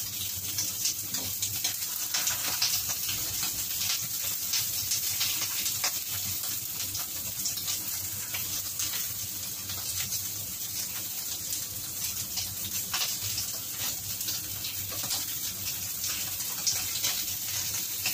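Pork cheek frying in its own rendered fat in a nonstick wok: a steady sizzle with many small crackles and pops.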